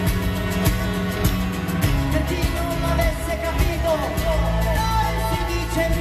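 A band playing live: acoustic and electric guitars over a sustained bass line and a steady beat, with a voice singing.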